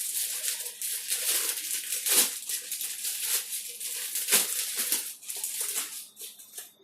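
Paper manuals and packaging rustling and crinkling as they are handled, with a few sharper crackles; it dies away near the end.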